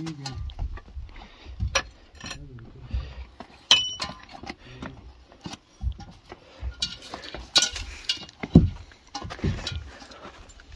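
Hikers' footsteps scraping and knocking on rock, with a metal teapot hanging from a backpack clinking and jangling as it swings, one clink ringing briefly about four seconds in.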